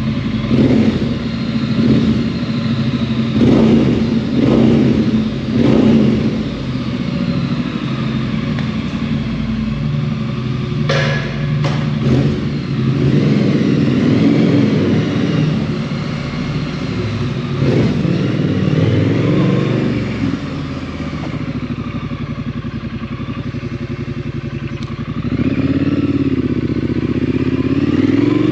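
2018 Triumph Street Scrambler 900's parallel-twin engine running through a Vance & Hines exhaust, with several sharp throttle blips in the first few seconds, then revs rising and falling a few times. A short sharp clack sounds about eleven seconds in.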